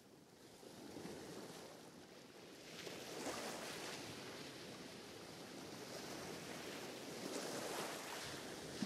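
Recorded ocean surf played as background: waves washing in with a soft, even hiss that swells about three seconds in and again near the end.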